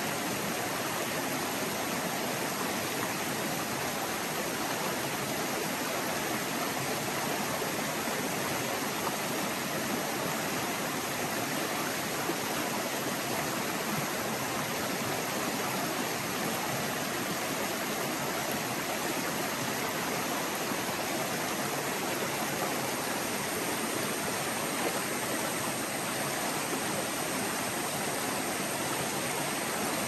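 Shallow mountain forest creek flowing over rocks: a steady, even rush and babble of water.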